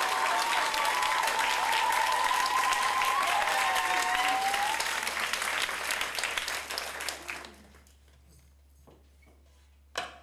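Audience applauding and cheering, with a long wavering high-pitched call above the clapping for the first five seconds. The applause dies away by about eight seconds, and a single goblet drum (darbuka) stroke sounds near the end.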